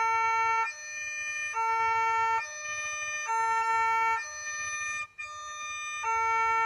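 Electronic warning alarm of a railway level crossing, alternating between a lower and a higher tone a little under once a second, signalling that a train is approaching.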